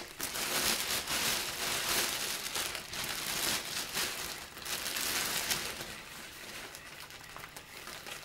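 Clear plastic bag crinkling and rustling as it is handled and pulled off a folded tarpaulin; the rustling eases off about six seconds in.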